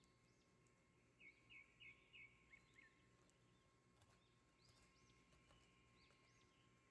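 Faint bird chirping: a quick run of four or five short high notes about a second in, then scattered short rising-and-falling chirps, over a faint steady hum.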